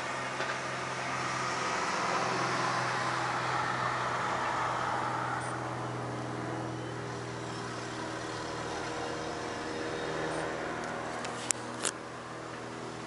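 Cessna light propeller plane flying over, its engine and propeller humming steadily. The sound swells over the first few seconds, then eases off and holds. Two sharp clicks come near the end.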